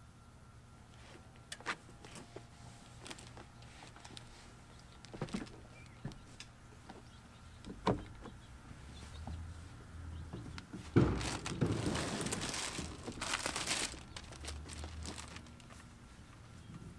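Knocks and clunks of a van passenger seat being handled and shifted on the van floor, with a loud thump about eleven seconds in followed by a few seconds of rustling and scraping.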